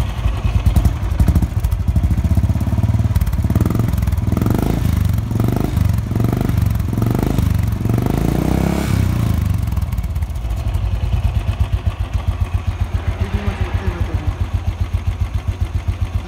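Royal Enfield Thunderbird single-cylinder four-stroke motorcycle engine running through its silencer, freshly repacked with glass wool, with a mellow thumping exhaust note. It idles, is blipped several times in quick succession a few seconds in, then settles back to a steady idle.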